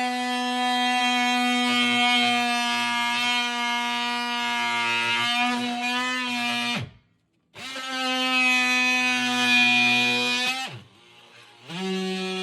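DeWalt oscillating multi-tool cutting through the bottom of a cupboard, a steady high buzz. It winds down with a falling pitch and stops twice, then starts again at a lower pitch near the end.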